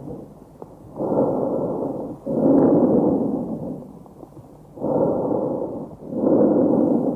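A recorded lung sound: a person breathing in and out, each breath a soft rushing noise of about a second with a brief gap before the next, with no musical wheeze. Two full breath cycles are heard.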